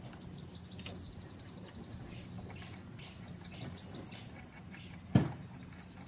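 Small birds chirping over and over, over a low steady hum, with faint clicks and one sharp knock about five seconds in.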